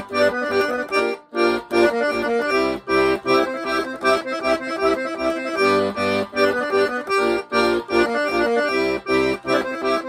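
Piano accordion playing quick back-and-forth arpeggios, broken chords on the G, G-minor and C chords, on the right-hand keyboard over left-hand bass notes, in a steady rhythm.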